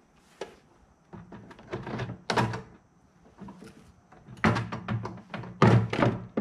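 Eshopps Prodigy L clear plastic overflow box knocking and rattling against the glass aquarium wall and its bulkhead fittings as it is fitted into place: a run of irregular clunks, loudest about five to six seconds in.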